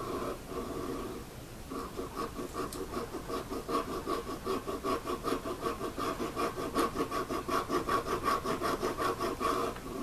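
Round file rasping back and forth across a deer-antler mandolin nut held in a vise, cutting a recess into its underside. It starts hesitantly, then settles from about two seconds in into quick, even strokes, roughly four or five a second.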